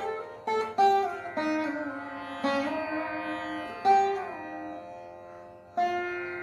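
Saraswati veena playing a Carnatic piece in raga Charukesi: single plucked notes that start sharply and ring away, several sliding in pitch, over steady drone strings.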